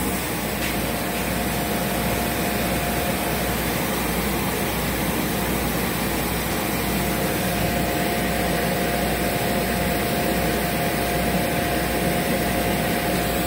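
CO2 laser cutting and engraving machine running: a steady machine whir with a thin, steady whine running through it.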